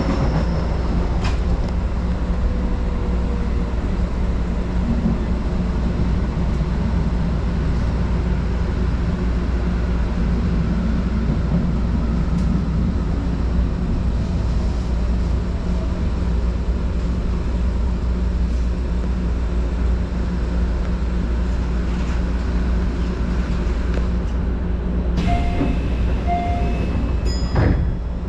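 Keio commuter train running at speed, a steady rumble of wheels on rail and traction motors heard from inside the car, with a faint falling motor whine at the start. Near the end come a few short, clear tones.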